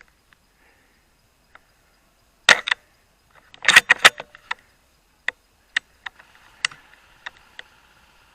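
Sharp clicks and knocks: a loud group about two and a half seconds in, a dense cluster around four seconds, then single clicks about every half second.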